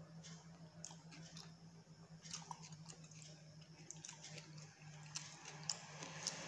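A person slurping and chewing instant noodles in soup: faint, short wet mouth sounds at irregular intervals, over a steady low hum.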